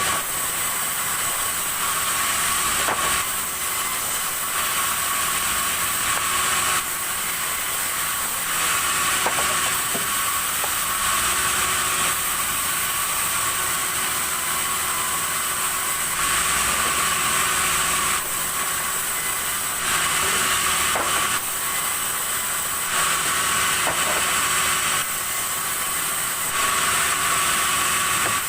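Sawmill saw running and cutting red timber: a steady high hissing whine that grows louder and softer every few seconds as the cut goes on.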